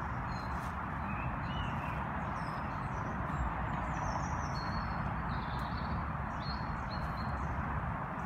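Wild birds chirping with short high whistles scattered throughout, over a steady rushing background noise.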